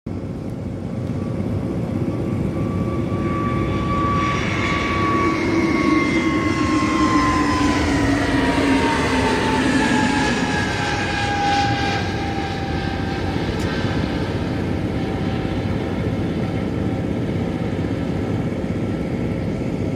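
Airbus A320neo jet engines at takeoff power as the airliner lifts off and climbs past: a steady rumble with a high whine that drops in pitch as it goes by, then a fading roar as it climbs away.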